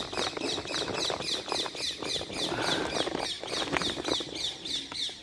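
A small bird chirping over and over, several short falling chirps a second in a fast, even run, with rustling underneath.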